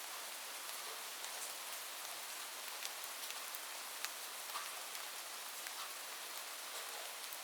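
Light rain falling steadily: an even hiss, with individual drops ticking sharply here and there on a surface.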